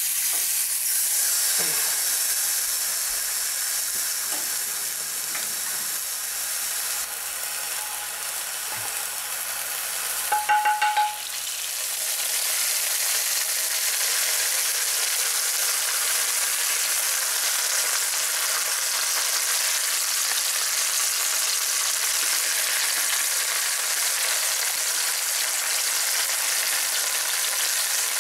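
A whole turkey sizzling in a very hot, preheated cast iron Dutch oven, a steady frying hiss. About ten seconds in there is a brief ringing metal clink. After it the sizzle grows louder as seasoned melted fat is poured over the bird into the hot pot.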